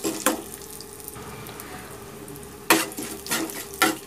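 A steel spoon stirs and scrapes whole spices and shallots roasting in a little oil in a nonstick pan. One sharp scrape comes just after the start, then a stretch of faint sizzling, then three more scrapes near the end.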